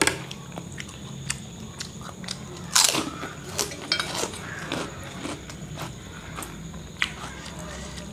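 Close-up chewing of a mouthful of chicken noodles, with a few sharp clicks of a metal spoon and chopsticks against the dishes, the loudest a little under 3 seconds in.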